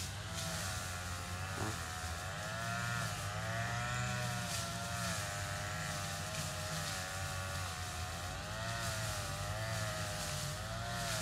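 A small engine running steadily, its pitch wavering slowly up and down.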